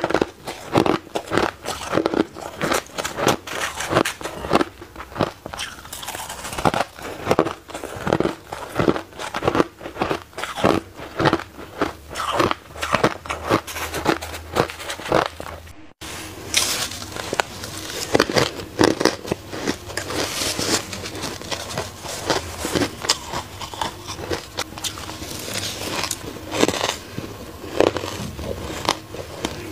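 Close-miked crunching of shaved ice being bitten and chewed, one crunch after another at about two a second. About halfway there is a brief break, and the crunching carries on with another mouthful of shaved ice.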